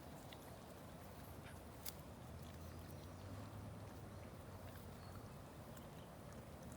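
Shiba Inu chewing grass: faint, irregular crunching clicks, one sharper about two seconds in. A low steady hum comes in underneath about two seconds in.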